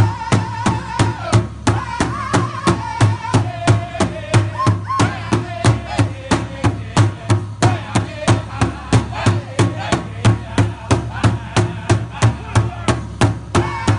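Powwow drum group singing in unison around a large hide-covered powwow drum, beaten together in a steady, even beat. The high sung line falls in pitch over several seconds and starts high again near the end.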